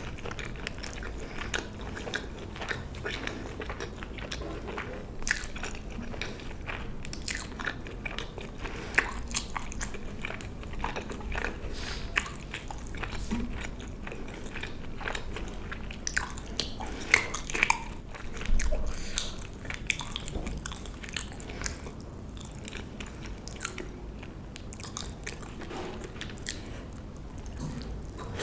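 A person chewing and biting food close to the microphone: many short crunches and wet mouth clicks, a few louder bites standing out.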